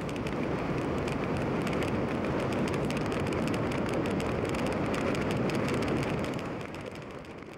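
Wind buffeting the microphone of a wrist-mounted camera during a tandem parachute descent: a dense, steady rush of noise with rapid crackling buffets, fading away near the end.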